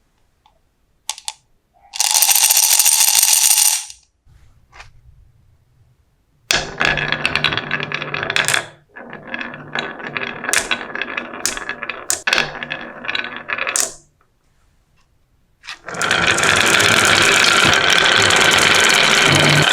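Marbles rolling and clattering down a marble run, with scattered clicks and knocks. There is a loud spell of rolling noise about two seconds in and a longer rattling run through the middle. Near the end a loud, steady whirring noise starts.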